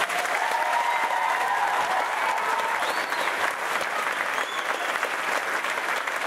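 Large audience applauding steadily, with a long held cheer over the clapping in the first few seconds.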